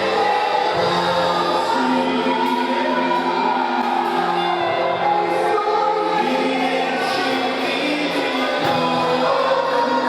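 Church congregation singing a worship song together over music accompaniment, holding long sustained notes.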